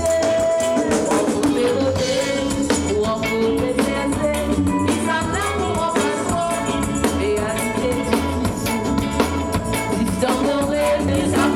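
Live band playing an upbeat song with drums and bass under a sung melody.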